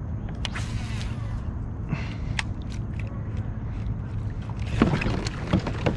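Sounds of fishing from a small boat or kayak: a steady low hum with scattered light clicks and knocks from handling gear, and a louder rush of noise about five seconds in.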